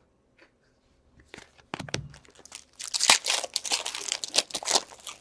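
Foil wrapper of a hockey card pack being torn open and crinkled: irregular crackling that starts about a second in and grows denser toward the end.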